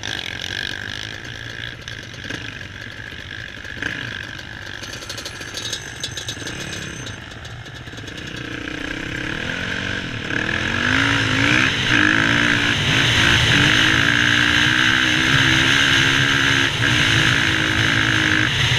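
Yamaha WR450F dirt bike's single-cylinder four-stroke engine, running lightly with the revs wandering for the first several seconds, then opened up from about ten seconds in. It gets much louder, its pitch climbing and dipping in steps as it pulls.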